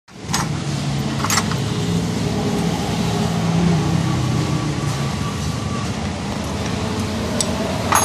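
Steel hand tools clinking in a metal toolbox tray, twice near the start and once more sharply at the end, over a steady background hum of running vehicle engines.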